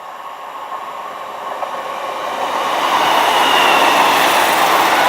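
Class 150 Sprinter diesel multiple unit train approaching and running into the station, growing louder over about three seconds and then holding loud with wheel-on-rail noise and a faint high wheel squeal.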